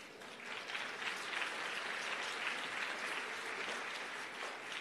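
Audience applauding lightly, building up about half a second in and dying away near the end.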